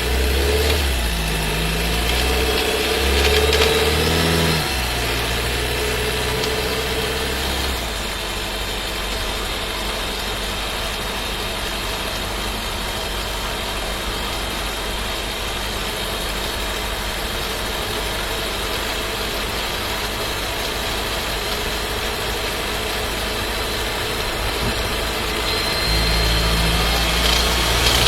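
Inside the cabin of a Skoda Scala 1.5 TSI with a dry-clutch DQ200 DSG gearbox: the engine and drivetrain running as the car drives, with a gear shift about half a second in that the owner finds too loud. Near the end a low droning rumble comes in, the vibration the owner complains of under light acceleration at about 50 km/h, which he does not accept as normal in a new car.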